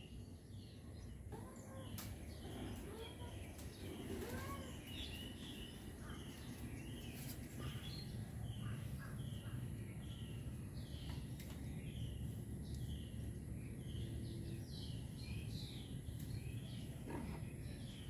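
Small birds chirping outside, with one repeating a short falling chirp nearly twice a second in the second half, over a low steady background rumble.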